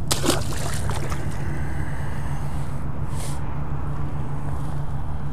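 A steady low hum over a rumbling background, with a couple of clicks at the start and a brief hiss about three seconds in.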